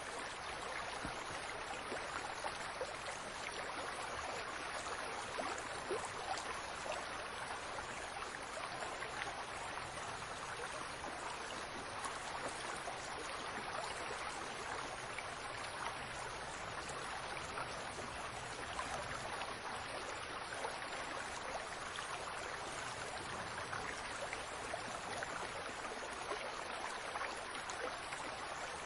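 Fountain water splashing and trickling steadily, an even rushing hiss without pauses or changes.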